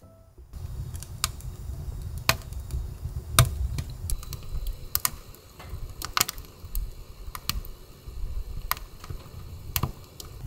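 Logs burning in a wood stove's firebox, burning well: irregular sharp crackles and pops over a low steady rumble of the fire.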